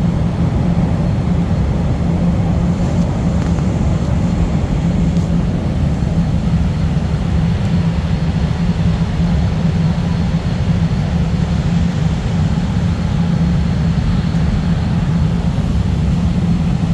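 Chicago CTA 'L' subway train running at speed, heard from inside the car: a steady, loud rumble with a constant low hum.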